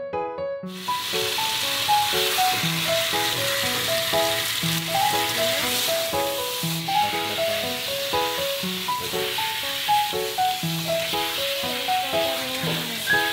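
Water spraying from a handheld shower head in a stainless steel grooming tub, an even hiss that starts suddenly about a second in, over light piano background music.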